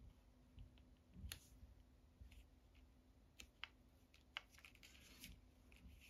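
Near silence with a few faint, sharp clicks and taps, about one a second, as fingers and long fingernails handle and press small paper pieces on a paper gift bag.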